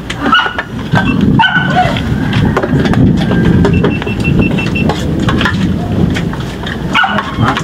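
A dog barking and yelping in short calls over a busy background din.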